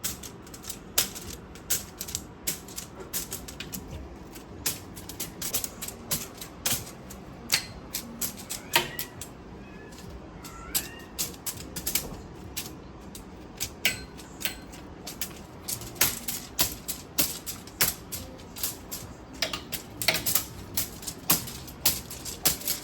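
Rapid, irregular clicking and tapping, several sharp clicks a second, from a cat toy being shaken and played with. A couple of brief high chirps are heard near the middle.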